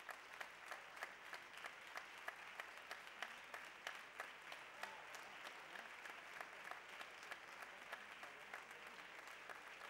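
Audience applauding: a steady, fairly faint patter of many hands clapping.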